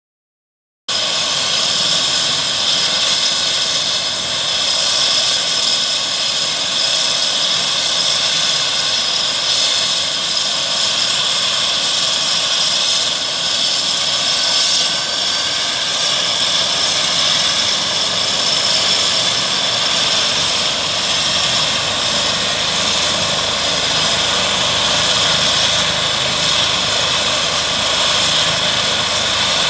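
Eurocopter EC135 P2 helicopter's twin turboshaft engines running on the ground, a steady high-pitched turbine whine over a rushing noise, starting about a second in.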